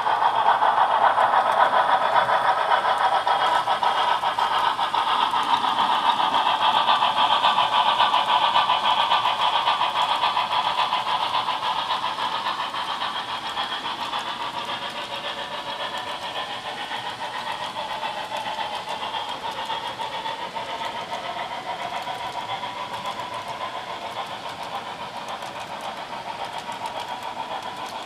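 A model freight train, its brass steam locomotive and metal and wood cars, rolling along the track with a steady running clatter. The sound grows fainter after about twelve seconds as the train pulls away.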